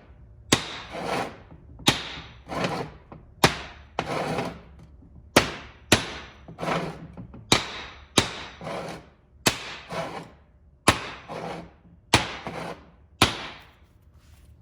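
Small ball-peen hammer tapping a seal down over a CV joint's centering ball to seat it flush, light strikes about once a second, each with a short ring after it.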